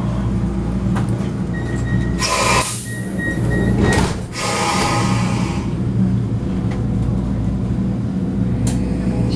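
Vienna U-Bahn metro car running, heard from inside: a steady low rumble, with a faint high whine for a couple of seconds and two bursts of hissing about two and four seconds in.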